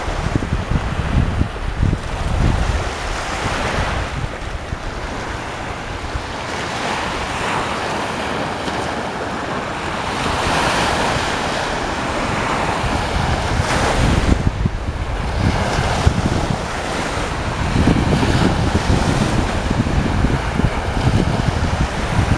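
Black Sea surf: waves breaking and washing ashore, with one broad surge about halfway through. Wind buffets the microphone with low rumbling gusts, most at the start and near the end.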